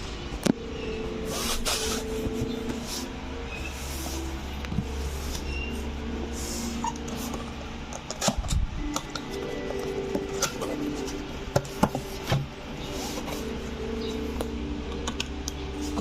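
Soft background music, with scattered clicks and short rustles from handling.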